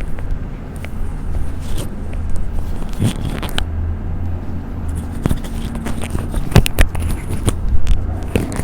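Scattered sharp clicks and rustling from a patient being shifted and positioned on a chiropractic treatment table, with a loud pair of clicks past the middle, over a steady low hum.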